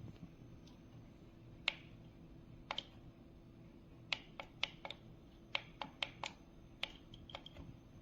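About a dozen light, sharp clicks at uneven intervals, several in quick succession near the middle, over a faint steady hum.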